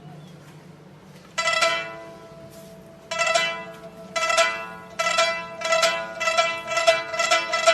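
Background music of plucked string notes: a few single notes at first, then a quicker, steadier run of notes.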